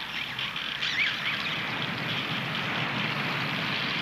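Wind rushing through fir trees, the branches shaken by a strong mountain wind: a steady, even rushing noise, with a couple of faint short high glides about a second in.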